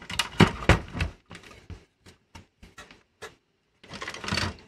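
Clicks and knocks of plastic and metal parts as a VCR tape mechanism and its wiring are handled, loudest in the first second, then scattered light ticks and a brief scraping rustle near the end.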